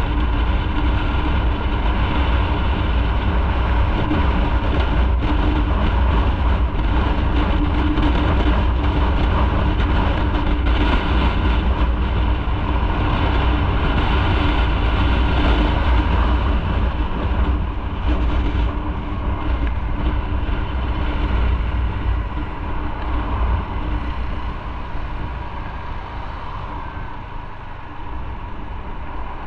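Motorcycle engine running steadily on the move, with road noise. The sound eases and quietens over the last third.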